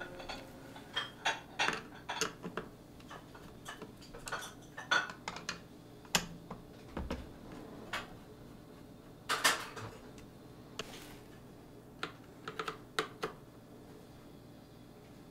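Irregular clicks, taps and small clattery knocks of a screwdriver undoing the screws on the aluminium U-channel of a plastic Nerf blaster, with handling knocks on the blaster and the screws rattling. A louder clatter comes about nine and a half seconds in.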